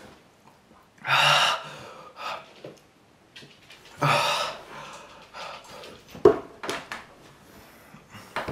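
A man's heavy, breathy gasps and exhalations of distress from a mouthful of food he finds horrible. Two loud ones come about a second in and about four seconds in, with fainter breaths between. A few soft clicks follow near the end.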